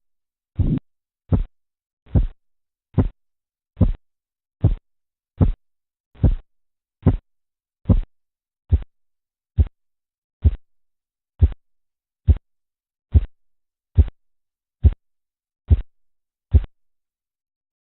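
Korotkoff sounds through a stethoscope over an artery under a deflating blood-pressure cuff: a steady run of pulse-beat thumps at about 75 a minute, each getting shorter and crisper, until they stop near the end. Their disappearance marks the diastolic pressure.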